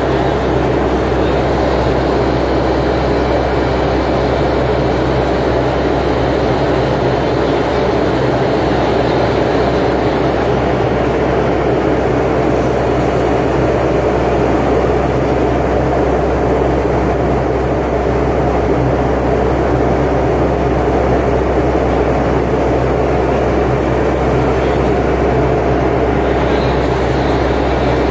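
Steady low drone of a Boeing 757-200's jet engines and the airflow around it, heard from inside the passenger cabin in flight.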